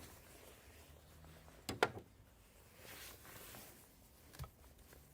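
Two sharp knocks close together about two seconds in, from a hand tool at work on the engine, with quiet handling and rustling around them.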